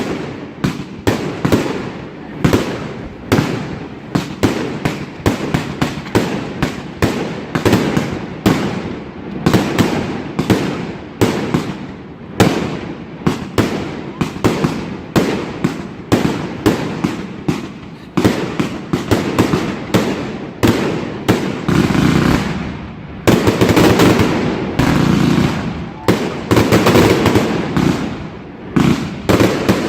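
Fireworks going off in rapid, irregular bangs, several a second, which thicken into an almost unbroken barrage about three-quarters of the way through.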